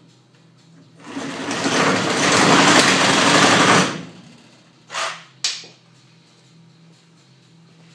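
Reciprocating saw (Sawzall) running and cutting through pallet wood for about three seconds, then stopping; two sharp knocks follow about a second later.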